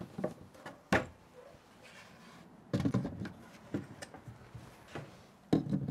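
Plastic cordless power-tool battery packs being slid onto wooden rail blocks, knocking and scraping against the wood. There is a sharp knock about a second in, a cluster of knocks near the middle and a few lighter knocks toward the end.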